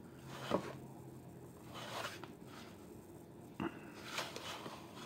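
Hands handling a plastic Megatron action figure: faint rubbing swishes, then a sharp click about three and a half seconds in, with a few lighter ticks after.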